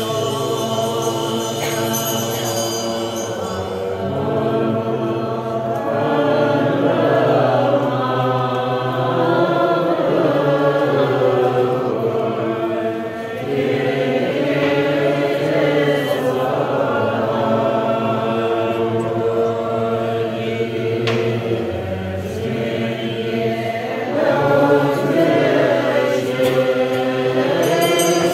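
A group of people chanting Buddhist prayers together from prayer books: many voices in unison, a continuous droning chant of long held notes.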